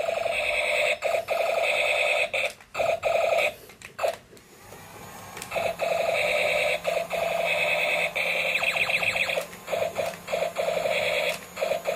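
Battery-powered toy bubble machine gun playing its electronic firing sound effect: a pulsing electronic beeping from the toy's small speaker. It breaks off about three and a half seconds in and starts again about two seconds later.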